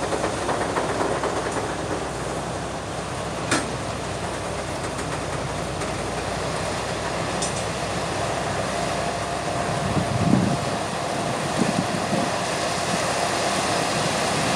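Ballast train approaching slowly along the track, a steady rumble of engine and wheels. There is one sharp clack about three and a half seconds in, and a faint steady whine joins about halfway through.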